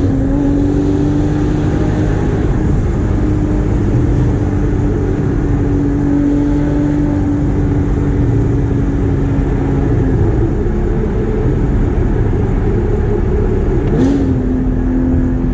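Porsche Cayman GT4's 3.8-litre flat-six running while driving. Its note climbs quickly at first, then holds steady for about ten seconds, and climbs again near the end, over constant low road rumble.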